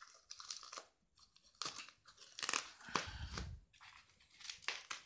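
Plastic bubble wrap around a parcel crinkling and crackling as it is handled, in irregular short bursts, with a soft low bump about three seconds in.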